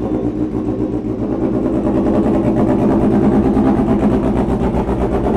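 Honda Fireblade's inline-four engine starting up and then running steadily, a little louder over the first couple of seconds.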